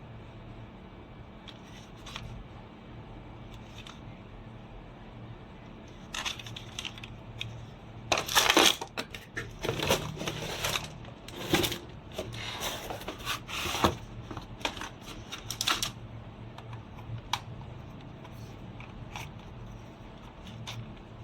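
Bursts of crinkling, crackling handling noise with rattles, followed by a few isolated sharp clicks near the end, over a low steady hum.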